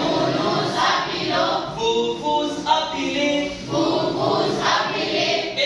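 A class of students reciting French verb conjugations aloud in unison, many voices chanting together in a steady rhythm.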